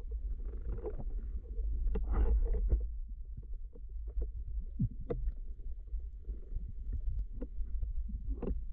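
Muffled underwater noise picked up through a diver's camera housing: a constant low rumble with scattered clicks and knocks, loudest about two seconds in.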